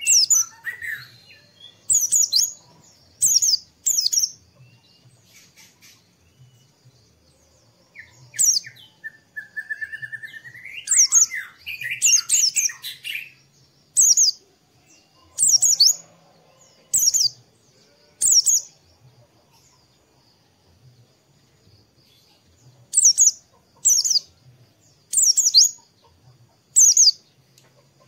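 White-eye (pleci) calling with short, high, downward-sweeping chirps, repeated about every second with pauses. A longer, lower warbling phrase comes about a third of the way in.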